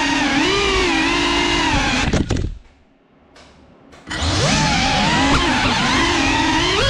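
Small FPV quadcopter's motors and propellers whining, the pitch sliding up and down as the throttle changes. A little after two seconds in there are a few sharp knocks, then it goes nearly silent for about a second and a half before the whine returns.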